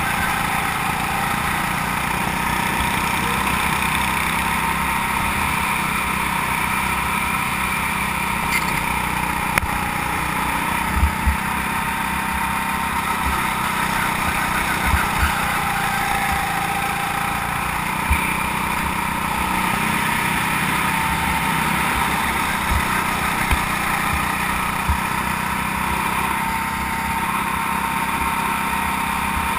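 Go-kart engine running steadily under way, its pitch rising and falling a little as the kart goes through the corners and onto the straight. A few short low thumps break in here and there.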